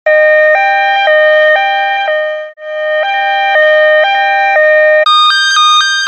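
Two-tone ambulance siren alternating between a low and a high note about once a second each, cutting out briefly about two and a half seconds in before starting again. About five seconds in it switches to a sped-up, higher-pitched version that alternates about twice as fast.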